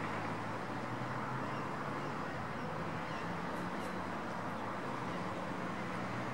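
Steady outdoor background noise with a low hum that comes and goes, and a couple of faint high ticks a little past halfway.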